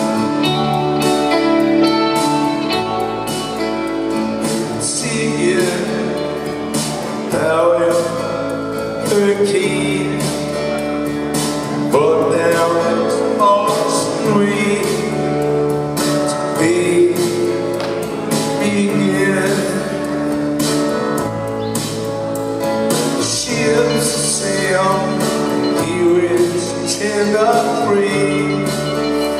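Live rock band playing a slow song: a male lead vocal sings over electric guitars and a bass line that moves to a new note every second or two.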